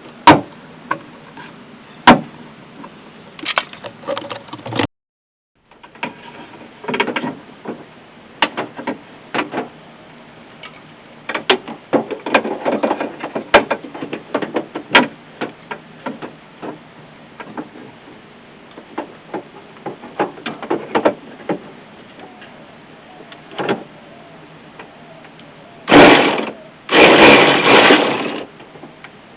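Tools clicking and rattling against the car door's sheet metal while its 10 mm handle bolts are undone. Near the end, two short loud bursts of a small motor, likely a power driver spinning the bolts out.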